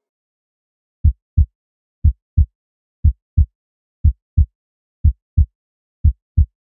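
Heartbeat sound effect: six low double thumps, lub-dub, about one a second, starting about a second in.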